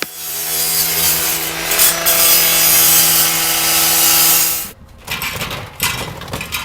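Gas-powered partner saw (rotary cut-off saw) with a 14-inch blade running at high speed while cutting through a sectional garage door for about four and a half seconds, then cutting off sharply. Scattered knocks and rattles follow.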